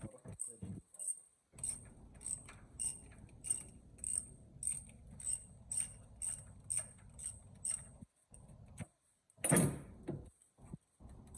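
Ratchet wrench with a spark plug socket clicking in a steady rhythm, about two clicks a second, as it is worked back and forth to turn a spark plug. A louder clatter of metal comes about nine and a half seconds in.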